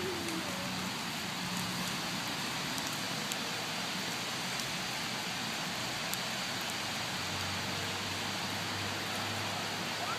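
Steady rain falling, an even hiss with no splashes standing out.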